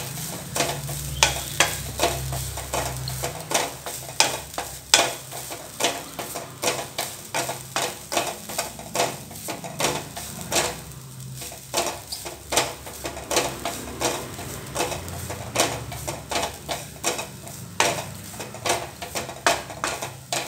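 Wooden spatula stirring and scraping grated coconut around a steel kadai, a scrape every half-second to second, over a light sizzle of the coconut roasting in ghee.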